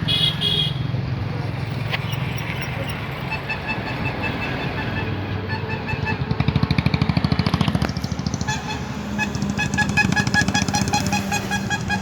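Road construction machinery running with a steady low engine hum, throbbing strongly for a couple of seconds midway. A rapidly repeating electronic beep at one fixed pitch sounds over it from about three seconds in.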